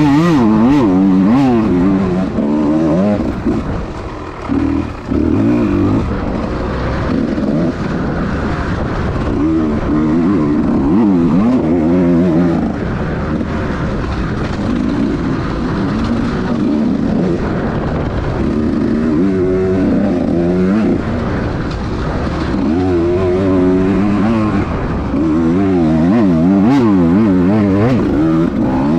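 Small-bore two-stroke dirt bike engine revving up and down over and over as the throttle is worked on a trail, with a brief lull about four seconds in.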